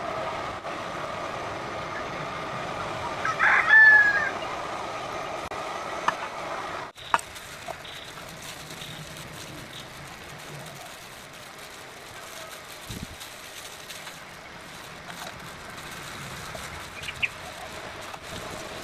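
A rooster crows once, about three and a half seconds in, over steady outdoor background noise, with a few faint clicks later on.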